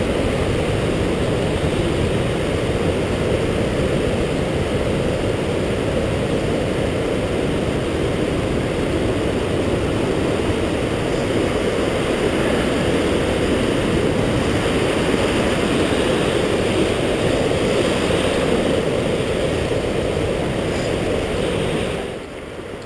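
Steady rushing of water from a waterfall, a dense even noise heaviest at the low end, dropping in level abruptly near the end.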